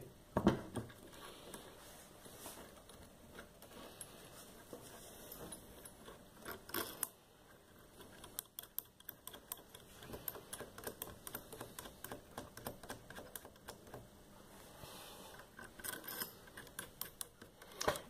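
Faint, scattered small metal clicks and scrapes of little bolts being handled and threaded by hand into the stator mounting of a refrigerator compressor motor.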